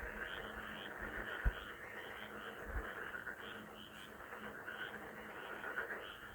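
A chorus of frogs calling, with many overlapping croaks forming a dense, continuous chorus and some higher calls repeating in quick clusters. A steady low hum runs underneath, and two brief low thumps come about a second and a half and nearly three seconds in.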